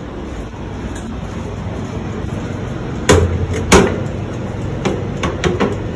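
Metal baking tray clanking against the oven as a tray of buns is handled and slid in: two sharp knocks a little past halfway, then a few lighter ones, over a steady low hum.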